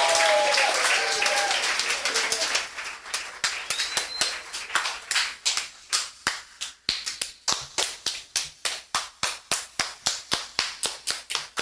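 Audience applause with a few whoops, dying away over the first two or three seconds, then hand clapping in a steady beat of about three claps a second.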